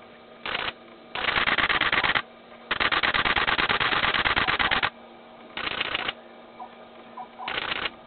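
Camera shutter firing in rapid bursts of continuous shooting, five runs of fast clicks: a short one, a second-long one, a long run of about two seconds, then two short ones. A faint steady hum runs underneath.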